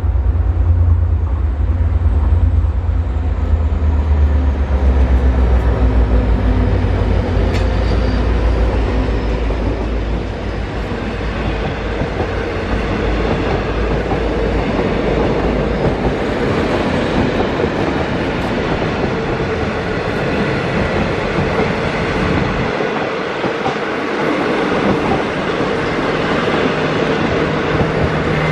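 Diesel-hauled passenger train passing close by at speed: a heavy low engine rumble as the locomotive goes by over roughly the first ten seconds, then a continuous rattle and wheel clatter as stainless-steel carriages roll past.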